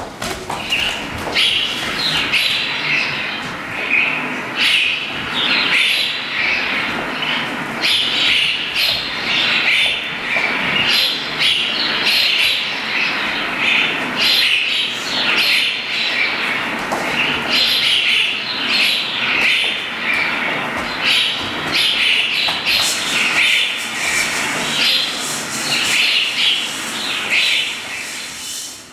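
Jungle-themed backing track for a jazz dance routine, full of bird calls and chirps, playing loudly and dropping away near the end.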